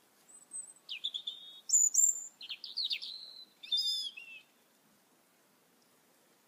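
A songbird singing one varied phrase of clear whistles, slurred notes and quick trills, lasting about four seconds before it stops, over faint steady background noise.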